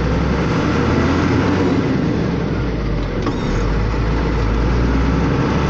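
Truck engine running steadily with road noise from the tyres on a wet road, heard from inside the cab.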